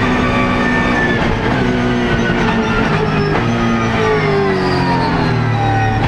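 BMW Z4 GT3's 4.4-litre V8 racing engine at high revs, heard from inside the cockpit. The pitch steps between gears early on, then the revs fall steadily over the last two to three seconds.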